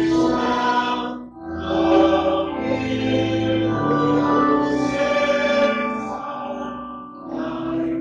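Slow hymn music of held chords that change every second or so, with a short break about a second and a half in.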